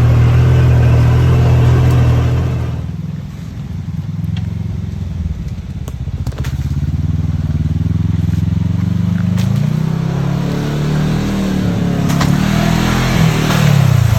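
Gen 3 Ford Coyote 5.0 V8 in a Bronco running under load with a steady, loud note for about three seconds, then easing off. From about the middle, its pitch rises and falls several times as it revs up and down.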